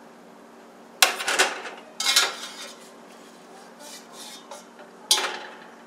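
Metal kitchenware clattering as boiled corn and potatoes are scooped from a steel pot with a metal strainer scoop and dropped onto a metal sheet pan: three sharp clatters, about a second in, at two seconds and near the end, with lighter knocks between.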